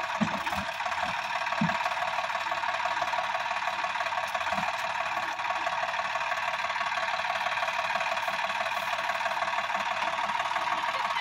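Sonalika DI-50 RX tractor's diesel engine running steadily with a rapid, even clatter. A few dull low thumps come in the first two seconds.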